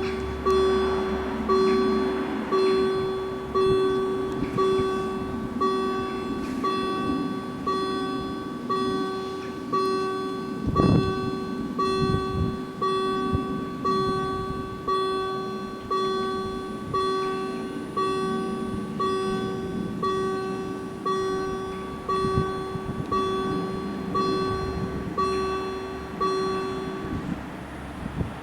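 Level crossing warning bells ringing in a steady, even rhythm of repeated bell strokes, stopping about a second before the end.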